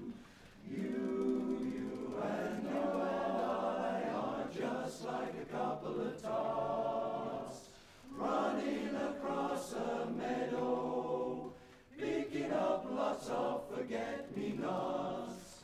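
Male barbershop chorus singing a cappella in close four-part harmony, in sustained phrases with short breaks for breath about halfway through and again near the end.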